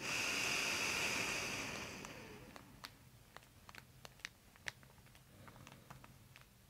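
A long, breathy rush of air lasting about two seconds and fading away, most likely a deep breath close to the microphone. After it come soft, scattered small clicks and rustles of hands on hair and skin.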